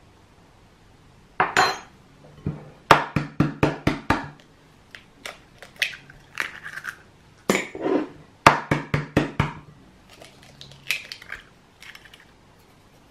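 A metal spoon and eggs knocking against a glass mixing bowl: runs of quick clinks and taps as a well is hollowed in the flour and two eggs are cracked on the bowl and dropped in.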